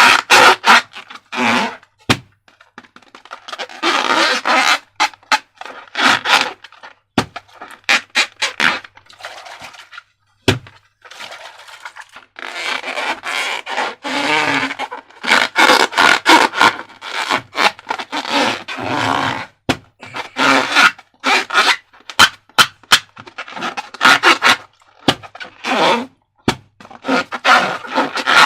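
Transparent rubber balloons and slime being handled: bursts of rubbing and scraping, some with faint squeaks, broken up by many sharp clicks and crackles.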